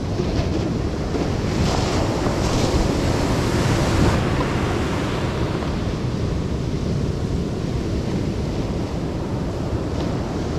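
Ocean surf washing up the beach, a steady rushing wash that swells a couple of seconds in and then eases. Wind buffets the microphone with a low rumble throughout.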